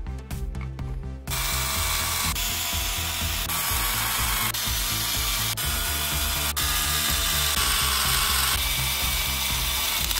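Electric screwdriver running in a series of back-to-back runs from about a second in, driving the case screws into a cordless drill's plastic housing, over background music.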